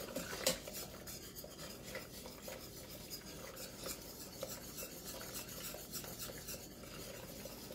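Metal wire whisk scraping and rubbing against the bottom of a stainless steel saucepan while stirring a sauce as it thickens: a faint, continuous rasping with small clinks, two sharper ones in the first half-second.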